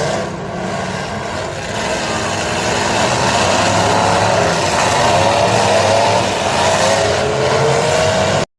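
Several demolition derby cars' engines running and revving together, their pitches wavering up and down and growing louder from about three seconds in. The sound cuts out for an instant at the very end.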